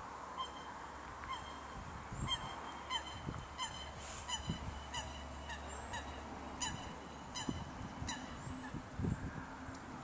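Geese honking: a string of short calls, about one to two a second, that stop near the end.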